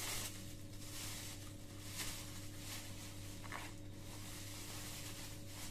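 Clear plastic packaging bag rustling in a few short bursts as it is handled and pulled open by hand.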